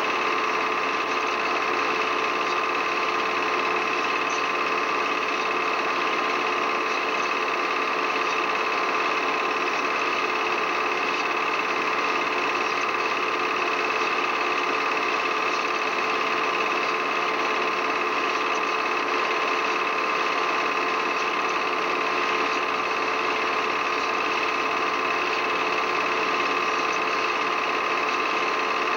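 Steady whir and clatter of a film projector running, with a constant hum that stays the same through every shot.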